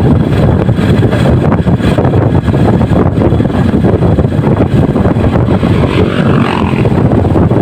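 Sport motorcycle riding along a road: a steady, loud rumble of engine and road noise with wind buffeting the helmet-mounted microphone.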